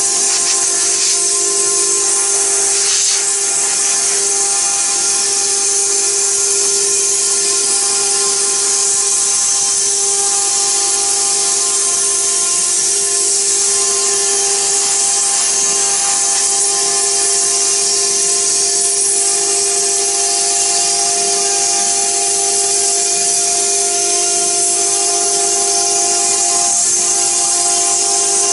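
CNC stone router's spindle running steadily while cutting stone: a constant whine with an even hiss over it.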